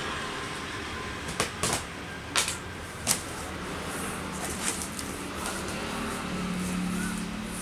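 Cardboard box flaps being pulled open and handled by hand: a few short, sharp crackles and knocks of stiff cardboard in the first half, then softer rustling. A low steady hum comes in near the end.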